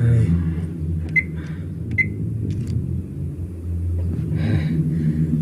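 Two short electronic beeps about a second apart from a microwave oven's keypad being pressed, over a low steady hum, with a heavy low thud at the very start.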